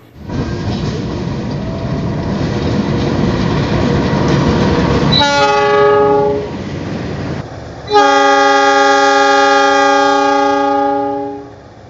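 A diesel-hauled train passes with a heavy, noisy rumble. About five seconds in its multi-tone horn sounds a short blast, and from about eight seconds in a longer, louder horn blast is held for over three seconds.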